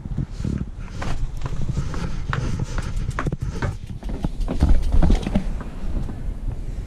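Irregular clacking footsteps on stone steps mixed with knocks and rattles from a road bike being handled, over a low rumble.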